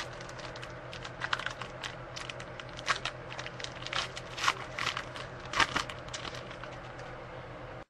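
Trading card pack being opened and handled: the wrapper crinkling and crackling in a string of short, irregular rustles, with louder crackles about three, four and a half and five and a half seconds in.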